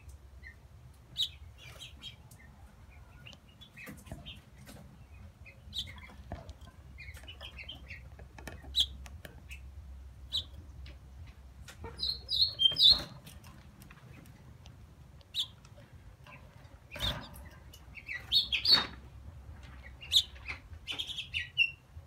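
Fledgling house finch chirping: short, high peeps scattered through, coming in quick runs about halfway and again near the end. A few louder rustling knocks come from the bird moving about in its wire cage.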